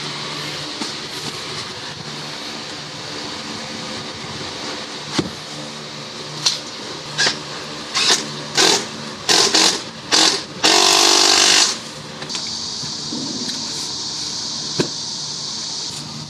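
Aerosol can of white lacquer spray paint hissing in a series of short bursts, then one longer spray of about a second. A steady mechanical hum runs underneath.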